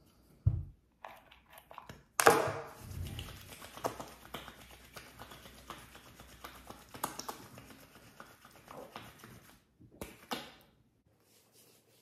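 Hands rubbing hair mask between the palms and working it through wet hair close to the microphone: a long stretch of soft rustling with many small clicks. A dull knock comes about half a second in and a sharper, louder one just after two seconds, when the rubbing starts; a couple more small clicks come near the end.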